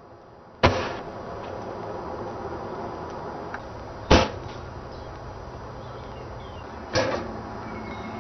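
A barrel smoke cannon fired three times, each shot a sharp, loud thump with a short tail, about three seconds apart.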